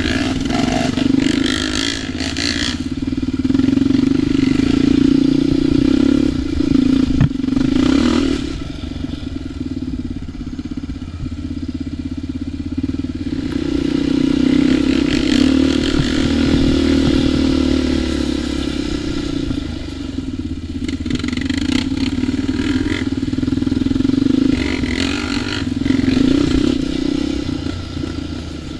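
ATV engine running on a trail, its revs swelling and easing off several times, with a few clattering knocks from the machine over rough ground.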